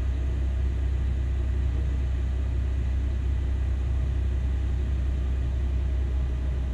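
Heavy diesel engine of a Caterpillar 6020B hydraulic mining shovel running under load with a steady, deep, low drone, with a haul truck idling close by, while the shovel works through its loading cycle.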